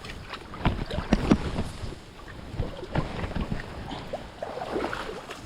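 Wind rumbling on the microphone over running creek water, with irregular knocks and clatters, the loudest about a second in and again about three seconds in.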